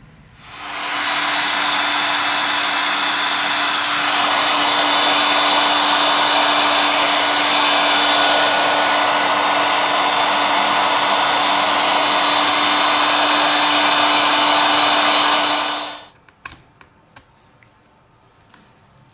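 Heat gun blowing hot air onto a tablet's screen edge, a steady loud rush of air with a steady hum from its fan, switched on about half a second in and off about sixteen seconds in; the heat softens the adhesive holding the glass. A few light clicks follow.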